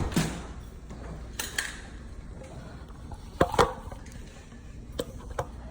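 A few scattered sharp clicks and knocks of hand tools and heavy wire being worked, with the loudest pair about three and a half seconds in, over a steady low hum.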